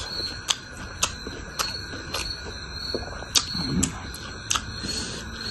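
Close-miked mukbang eating sounds: chewing a mouthful of crunchy singju salad and rice, with sharp wet mouth clicks and smacks about twice a second. A short low hum from the eater comes near the middle.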